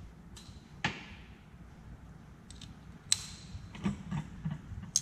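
Metal hand tools clinking and knocking as they are handled: a few scattered sharp strikes, the loudest about three seconds in with a short metallic ring, then a quick cluster of knocks.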